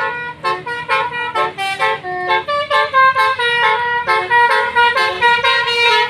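Basuri telolet horn on a tour bus playing a quick tune of short, changing horn notes, several a second.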